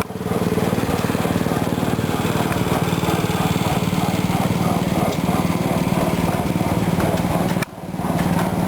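1895 Fairbanks Morse 15 hp hit-and-miss engine running with a steady, rhythmic mechanical clatter. The sound breaks off abruptly for a moment about three-quarters of the way through, then carries on.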